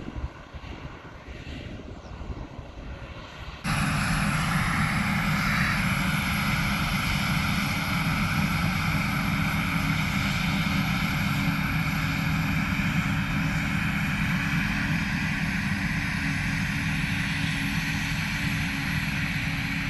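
Heavy farm machinery running under steady load: a big diesel engine drone with a constant high whine. It comes in abruptly about four seconds in after a quieter stretch of engine noise.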